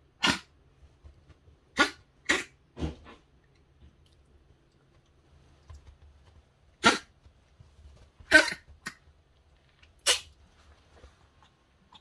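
Pomeranian's dry hacking coughs, about eight short, sharp bursts in clusters of two or three. This is the frequent hacking of a small dog with weak airways.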